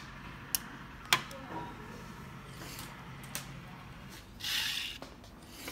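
A few sharp metallic clicks, then a short scraping swell near the end: parts of a 3D printer's extruder carriage being handled and worked loose, such as the belt and guide shaft.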